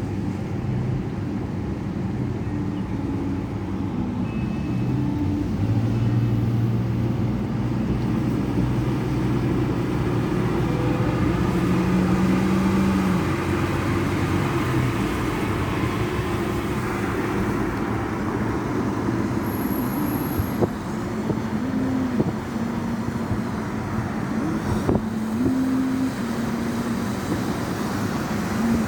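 Road traffic: motor vehicle engines running with steady road noise, the engine pitch shifting up and down.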